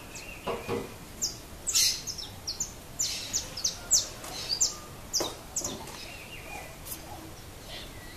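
Saffron finch chirping: a quick, irregular series of short, high, sharp notes.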